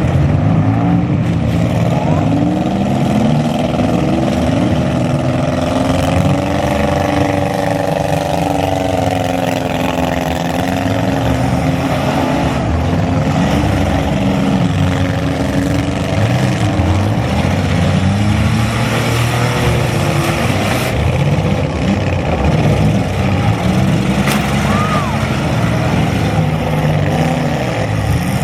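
Several compact-car engines running hard at once in a demolition derby, their pitches rising and falling over one another as they rev.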